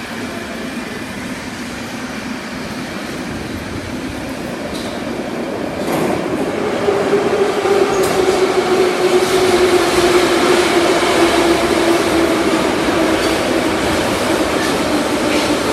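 81-717/714 metro train running, a steady rolling rumble that grows louder about six seconds in. From then on a whine rises out of it and slowly drops in pitch.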